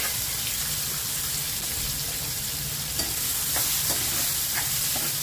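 Chopped watermelon rind sizzling in hot oil in a kadhai, freshly added to the tempering. From about three seconds in, a spatula scrapes and stirs the pieces in short strokes.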